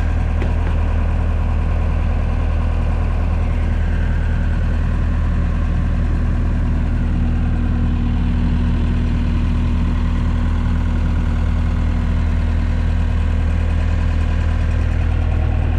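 1996 Scat Trak 1700CX wheeled skid steer's engine idling steadily, a deep even hum.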